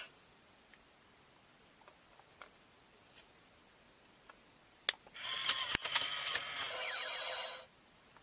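Ultimate Mechanix Unicorn Gundam robot toy: a few faint ticks, then a sharp click about five seconds in and one of its electronic sound effects, lasting about two and a half seconds with clicks through it, stopping abruptly.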